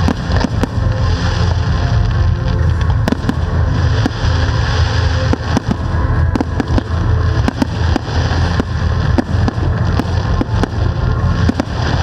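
Aerial firework shells bursting in quick, irregular succession: many sharp bangs and crackles over a deep rumble, with music playing along.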